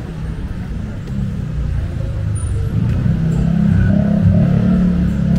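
Low engine rumble of a motor vehicle in street traffic, growing louder through the second half as it draws near or speeds up.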